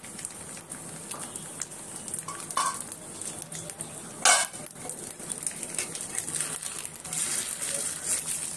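Rice-flour crepe batter sizzling and crackling softly on a hot black griddle pan, with a sharp metallic clink about four seconds in and a smaller one a little before it.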